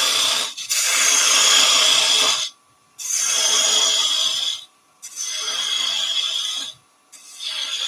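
Thin parting tool cutting a small piece of wood spinning on a lathe, in about four strokes of one and a half to two seconds each, with short silent breaks between them.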